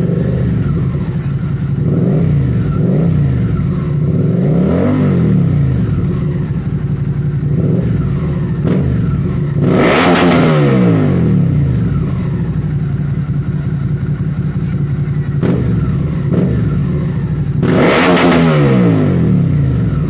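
Suzuki SV650's V-twin engine through an aftermarket copy of an Akrapovic Ducati V4 exhaust, idling and being revved: a few short throttle blips in the first eight seconds, then two longer revs, about ten seconds in and near the end, each rising and dropping back to idle.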